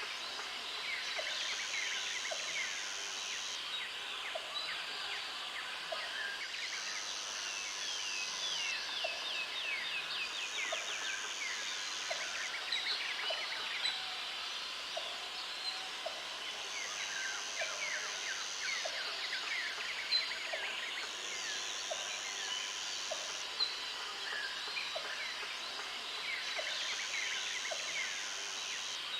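Tropical forest ambience: many birds chirping in quick falling notes, with a high insect buzz that comes in bursts of about two seconds every few seconds, and a faint tick about once a second.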